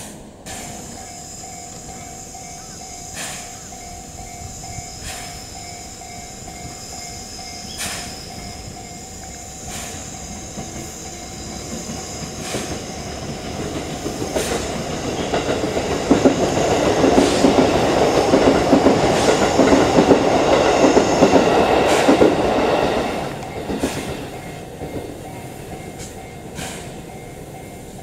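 JNR Class C11 steam tank locomotive standing with a steady steam hiss and occasional sharp knocks. About halfway through, a loud rush of venting steam builds, holds for several seconds and dies away with a few seconds left.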